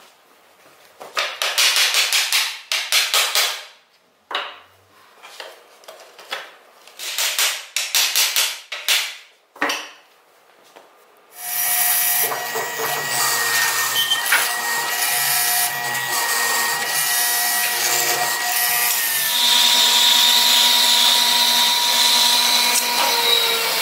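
For about the first eleven seconds, hand tools work on a hardwood joint: a run of short, sharp knocks and strokes with pauses between. Then a woodworking machine starts and runs steadily: a hollow-chisel mortiser boring a mortise, followed near the end by a bandsaw cutting a board.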